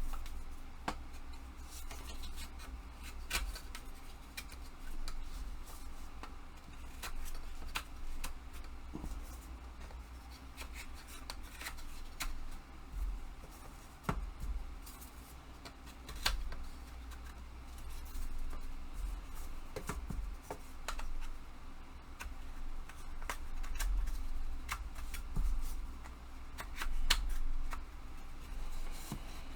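Small wooden rack parts being handled and slotted together by hand: scattered light clicks, taps and rubbing, irregularly spaced throughout, over a steady low room rumble.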